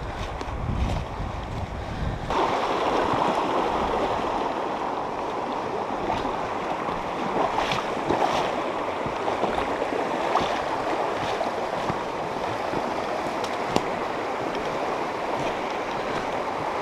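Creek running high after days of rain, a steady rush of water, with a low wind rumble on the microphone for the first two seconds or so.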